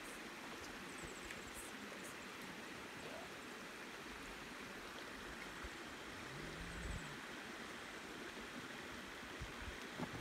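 Shallow rocky river flowing steadily, an even rush of water. About two-thirds of the way through comes one short, low, pitched sound that rises and falls.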